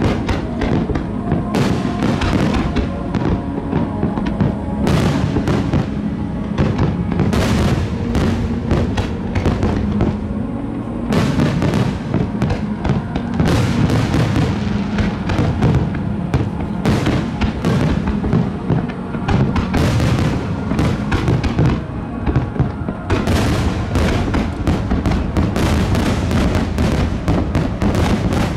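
Aerial fireworks bursting in rapid, overlapping succession, with crackles and booms, while music with long held notes plays along with the display.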